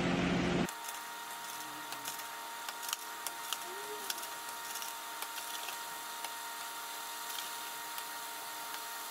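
Faint knife clicks on a cutting board as cherry tomatoes are halved, over a steady hiss with a thin high tone. A louder steady rushing noise stops abruptly under a second in.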